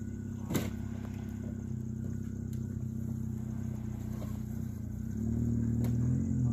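A small engine running steadily, growing louder and heavier about five seconds in, with a single knock about half a second in.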